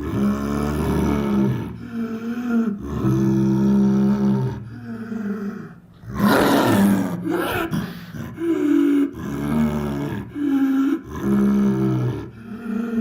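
Dinosaur sound effects for a Dimetrodon: a string of pitched roars and growls, one after another with short breaks. About six seconds in comes a harsher, hissing roar.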